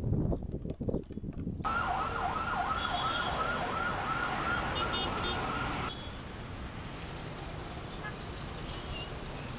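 Wind gusting on the microphone, then, from about a second and a half in, a siren warbling rapidly up and down, two to three times a second, over traffic noise. About four seconds later the siren cuts off and steady street and traffic noise carries on.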